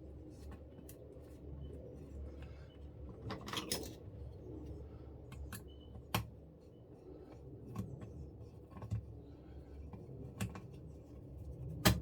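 Small parts being handled while assembling an RC car kit: irregular clicks and taps of plastic pieces, screws and small tools, a few sharper knocks among them.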